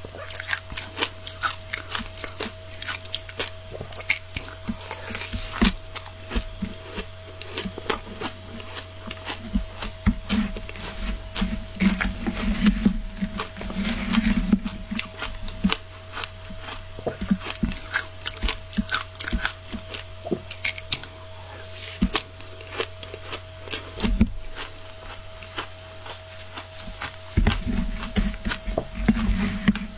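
Close-up crunching and chewing of frozen matcha shaved ice, with a metal spoon scraping and digging through the ice in a plastic tub; many sharp crunches follow one another throughout. A steady hum runs underneath.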